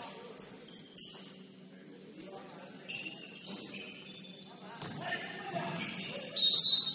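Basketball game on an indoor court: sneakers squeaking on the hardwood, with a few sharp thuds. The loudest is a longer high-pitched squeak near the end.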